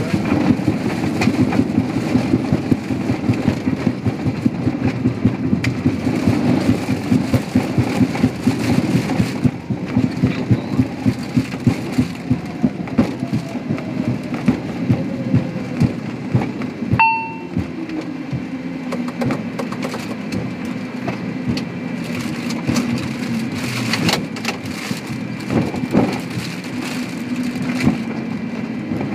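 Embraer ERJ-145 regional jet on its landing roll over a concrete-slab runway. Its wheels knock over the slab joints in a fast rattle that slows to about one thump every half second as the jet decelerates, over a steady engine hum with a whine falling in pitch midway. A short electronic beep sounds a little past halfway.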